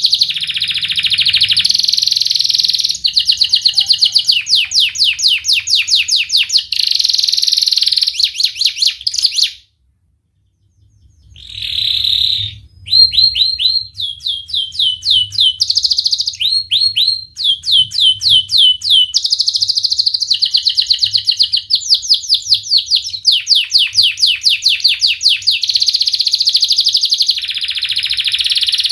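Domestic canary singing fast, tight trills and runs of sharp repeated 'wit wit' notes, with one brief pause about ten seconds in.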